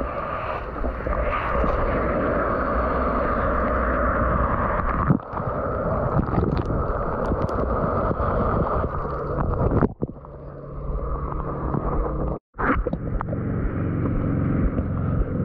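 Outdoor shower water spraying onto a surfboard and over the camera, a steady rushing hiss. It breaks off about ten seconds in, leaving wind buffeting the microphone.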